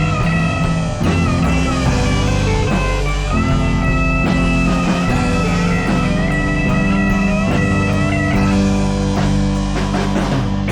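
Rock band playing an instrumental passage with no singing: a lead electric guitar carries a melody of held, slightly bent notes over bass and a drum kit.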